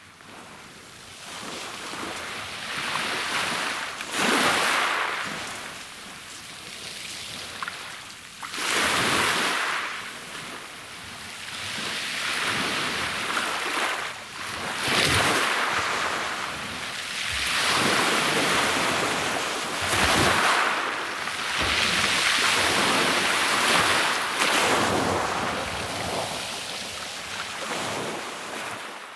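Sea waves breaking and washing over a pebble beach, surging and ebbing every few seconds.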